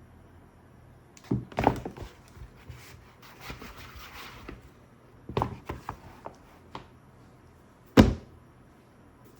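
Product packaging being handled while unboxed. There are clusters of knocks and taps about a second in and again around five to seven seconds, a soft sliding rustle in between, and one sharp thunk at about eight seconds, the loudest.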